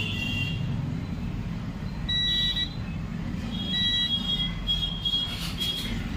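Digital multimeter's continuity beeper sounding in several short, uneven beeps as the probes touch points on the laptop motherboard, each beep marking a low-resistance path while the board is searched for a short circuit. A steady low hum runs underneath.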